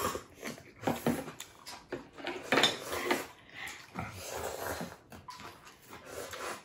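Close-miked eating of ramen: irregular bursts of chewing and slurping, with utensils now and then clinking against the bowls.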